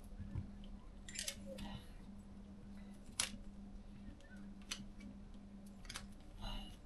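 Small clicks and short rustles of hands working with wires and small parts, with one sharp click about three seconds in, over a steady low hum.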